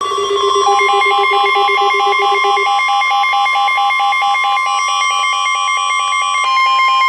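Emergency weather alert: a steady warning alarm tone from NOAA Weather Radio, with rapid electronic alert beeping over it, about four or five beeps a second. A lower, faster pulsing sounds for the first few seconds and stops.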